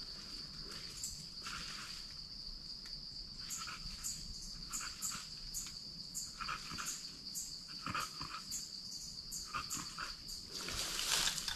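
A hunting dog barking repeatedly at quarry it has scented, over a steady high insect drone. The hunter suspects it may be barking at a snake rather than a monitor lizard. A louder rustle comes near the end.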